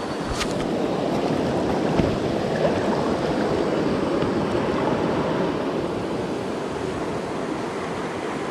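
Shallow muddy floodwater rushing and sloshing as someone wades through it, with a brief knock about two seconds in.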